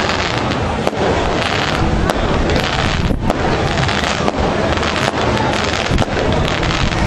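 Continuous dense crackling noise made of many sharp pops, with only a brief let-up about three seconds in.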